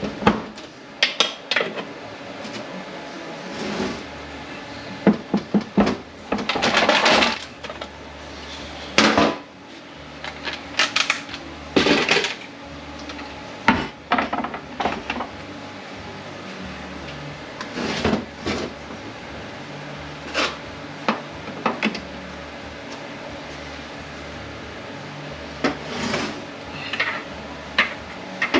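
Metal tools and transmission parts clanking, clicking and scraping as a part of a ZF 9HP48 (948TE) automatic transmission is pried up during disassembly. The knocks come irregularly throughout, with a longer scrape about six seconds in.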